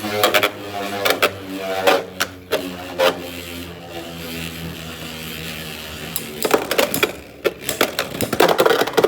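Beyblade X spinning tops whirring steadily in a plastic stadium, with sharp clacks as they collide; a new flurry of clacks comes about two thirds of the way in.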